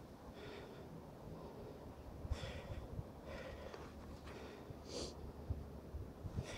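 A person's breathing and sniffing close to the microphone, short quiet breaths about once a second, over a low rumble of wind or handling noise.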